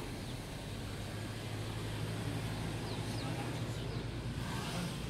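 Steady low hum under a even hiss of background noise, with a few faint high chirps.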